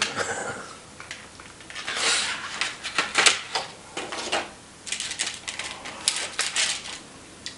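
Clear plastic blister tray being pulled open, crackling and clicking in a series of short bursts.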